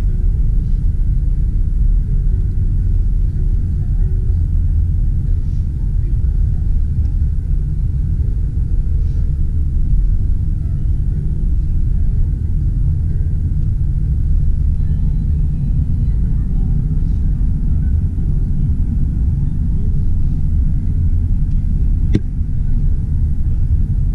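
Steady low rumble of a car driving, heard from inside the cabin: engine and tyre noise on the road. A single sharp click near the end.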